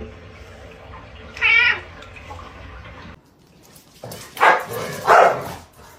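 A cat meows once with a wavering pitch. About three seconds later come two louder, harsher sounds about half a second apart.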